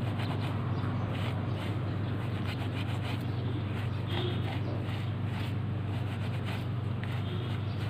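A terry-cloth towel rubbing over a grey Puma suede sneaker in short, irregular scratchy strokes, over a steady low hum.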